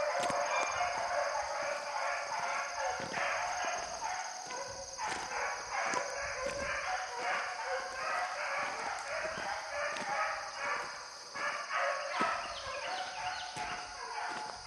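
Pack of beagles baying on a rabbit's trail: many overlapping bays and barks that keep repeating, the dogs giving tongue while running the rabbit.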